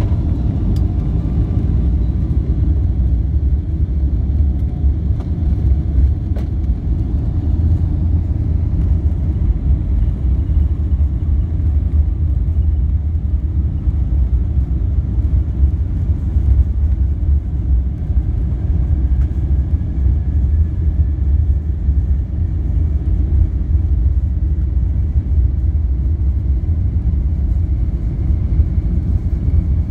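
Cabin rumble of a Boeing 747-8 taxiing, heard from a seat over the wing: a steady low rumble of the GEnx engines and the rolling gear. A faint whine rises slowly in pitch over the second half.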